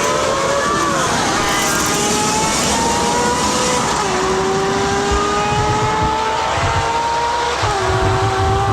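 Motor vehicle engine accelerating through the gears. Its pitch climbs steadily and drops at a gear change about four seconds in and again near the end, over a rough rushing noise.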